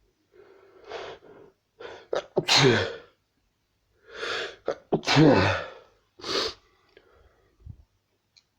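A person sneezing twice, each sneeze led in by gasping in-breaths, with a short sharp breath after the second.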